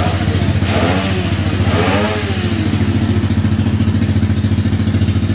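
Newly built Yamaha Mio 160 drag-bike scooter engine, a single-cylinder four-stroke with 63 mm bore and 30 mm KOSO carburettor, idling steadily with a fast, even beat. Two short rising-and-falling tones sound over it about one and two seconds in.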